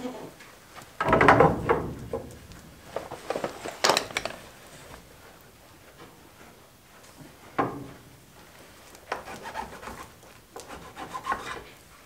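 Scattered rubbing and knocking of a long spirit level and hand tools against a wooden door post, with the loudest bump about a second in.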